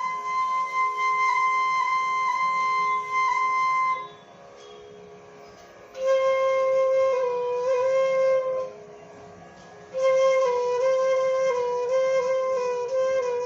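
Flute playing a slow melody in raag Hamsadhwani. A long high note is held for about four seconds, then after a short pause come lower sustained phrases decorated with small turns, then another pause and a further phrase.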